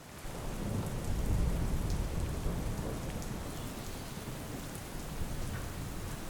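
Steady rain falling, with scattered drop ticks and a deep rumble of thunder that swells in over the first second or two and slowly eases off.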